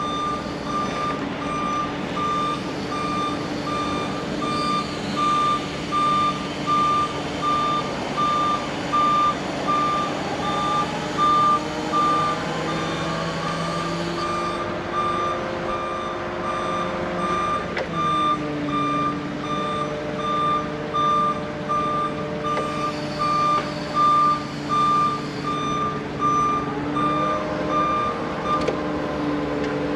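Forklift engine running under load while its warning beeper beeps about once a second. The engine speeds up about ten seconds in as the mast lifts, drops back around eighteen seconds, and picks up again near the end, just as the beeping stops.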